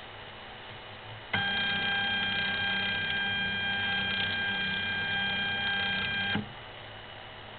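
A steady, buzzy tone starts abruptly, holds for about five seconds and cuts off, over a low steady hum.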